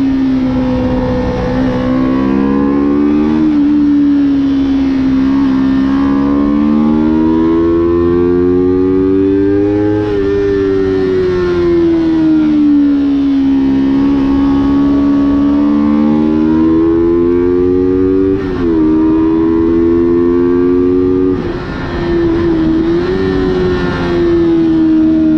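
Motorcycle engine at racing speed, heard from on board: its note climbs steadily under acceleration and falls away under braking, twice over, with a couple of abrupt pitch breaks from gear changes in the later part.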